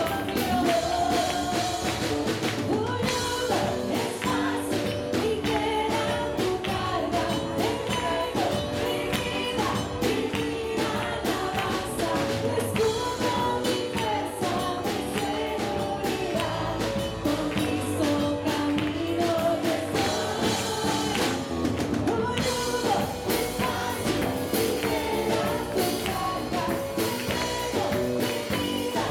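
Live Christian worship band playing a Spanish-language praise song: a woman and a man singing lead into microphones over keyboard and electric guitar, with a steady beat.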